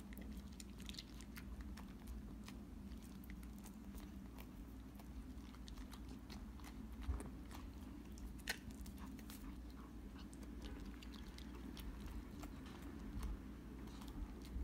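A dachshund mouthing a lemon slice: faint, scattered wet smacks and clicks of licking and chewing, with two sharper clicks in the middle, over a low steady hum.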